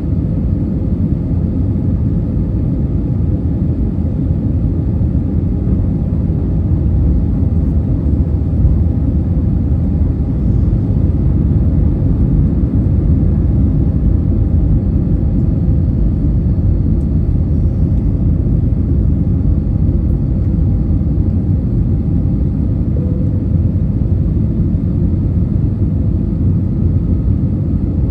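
Steady low rumble of cabin noise inside an Airbus A320 airliner, with engine and airflow noise blended into an even drone and a faint steady hum above it; it grows slightly louder about twelve seconds in.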